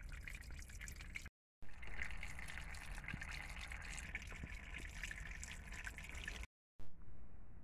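Spring water dripping and trickling over wet rock, with small individual drips. It drops out twice for a moment and is fainter after the second break, near the end.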